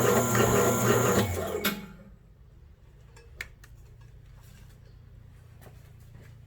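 A motor-driven machine running loudly with a steady hum, then switched off and winding down to a stop about a second and a half in, followed by a few light clicks.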